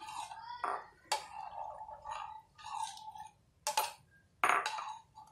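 Kitchen utensil clinking against bowls: about three sharp clinks, one about a second in and two near the end.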